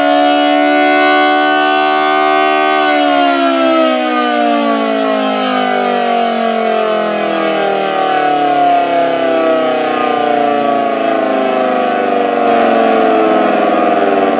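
Federal Model 2T outdoor warning siren sounding at full pitch for a few seconds. Its pitch then falls steadily and slowly as it winds down.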